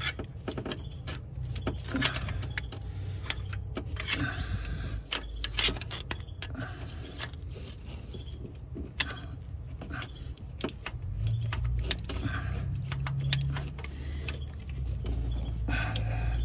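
A metal pry bar clinks and knocks against engine parts in irregular sharp taps, with a few short scrapes, as the alternator is worked loose in its mount. A steady low rumble runs underneath.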